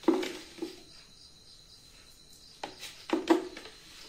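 Light knocks of a utensil against cookware as sugar is tipped out, each with a short ring. There is one sharp knock at the start and a softer one just after, then a quick run of knocks about three seconds in.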